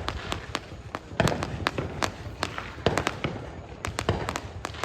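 Fireworks exploding: many sharp bangs and pops in quick, irregular succession, several a second, some louder and nearer than others.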